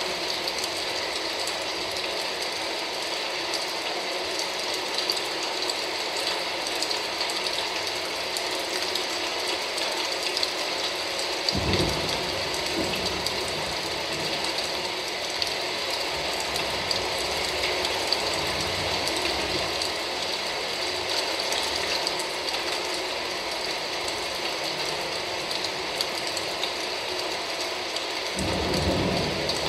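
Recorded rain sound effect played over a hall's speakers: a dense, steady crackling patter, with low rumbles of thunder joining about twelve seconds in and again near the end.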